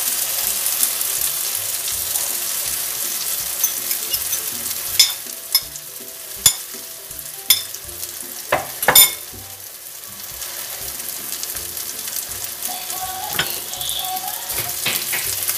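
Beaten egg poured over eggplant, tomato and onion frying in oil, the pan sizzling steadily. About halfway through come a few sharp clinks of utensils, then the sizzle carries on more softly.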